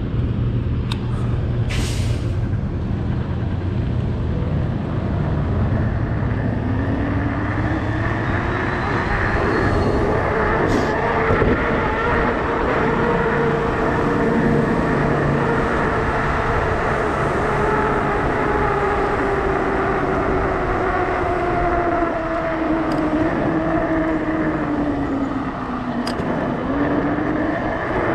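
Bafang BBSHD mid-drive e-bike motor whining under power, its pitch climbing as the fat bike pulls away from a stop, then easing down, dipping about 25 seconds in and climbing again. A steady rush of fat-tyre road noise and wind runs underneath, with a short click about two seconds in.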